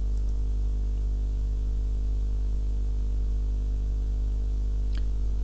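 Steady electrical hum with evenly spaced overtones and a faint hiss: the microphone's background noise, recorded with no one speaking so that it can serve as the noise profile for noise reduction. A small click comes near the end.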